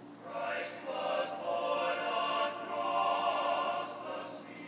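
Choral music: a choir singing, coming in just after the start and fading near the end.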